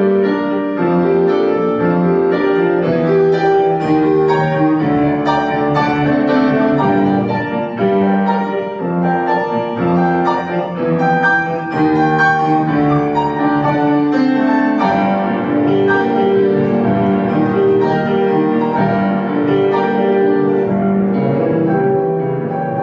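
Piano playing classical music: a continuous run of many notes at an even, fairly loud level.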